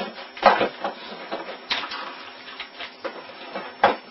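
Irregular clicking and knocking of hands on a computer keyboard and desk, with a few louder knocks about half a second in, near the middle and just before the end.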